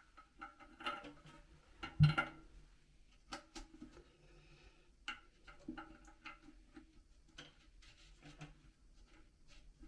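Scattered light clicks and knocks of plastic toilet cistern fittings being handled and fitted, with one louder knock about two seconds in.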